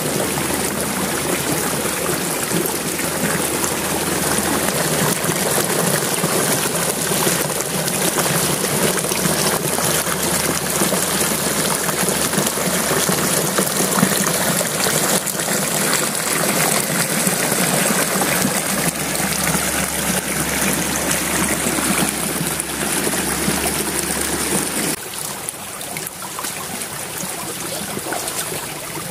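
Shallow forest stream running steadily over stones and debris, a continuous rush of water that drops a little quieter near the end.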